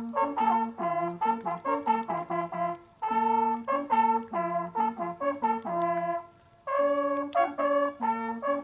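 Several hunting horns playing a fanfare in harmony, in short rhythmic notes, with brief pauses about three and six seconds in. These are the traditional horn signals sounded over the laid-out bag at the end of a driven boar hunt.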